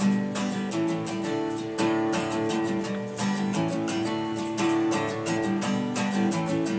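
Solo acoustic guitar playing chords in a steady rhythm, with no singing.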